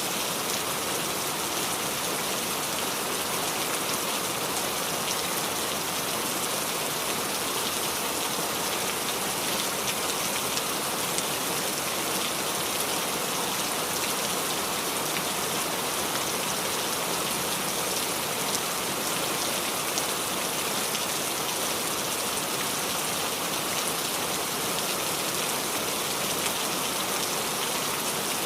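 Steady rain falling on leaves, many small drops pattering in an even hiss.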